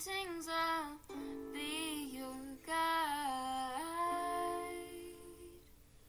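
Song intro: a female voice sings a wordless melody with sliding notes over a held lower part, fading out near the end.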